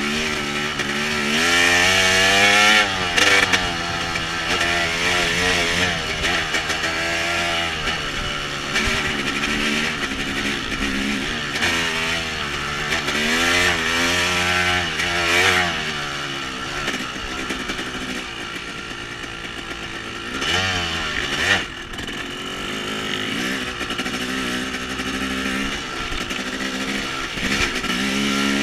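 Small off-road vehicle engines running and revving, their pitch climbing and falling again and again as the throttle opens and closes, at times more than one engine at once.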